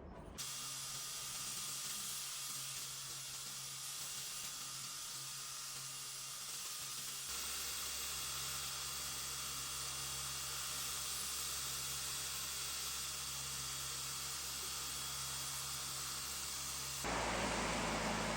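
Steady hiss from a running machine, with a low hum that joins about seven seconds in; the sound shifts abruptly again near the end.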